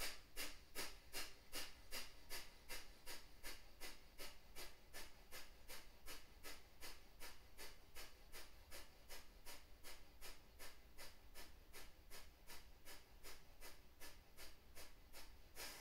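Kapalabhati yoga breathing: a long run of rapid, forceful puffs of breath out through the nose in an even rhythm of about three or four a second, stopping near the end.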